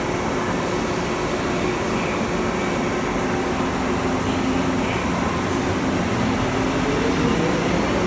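Hong Kong MTR M-Train electric multiple unit pulling out of the platform: a steady hum while it stands, then from about six seconds in a whine that rises in pitch and grows louder as the train accelerates away.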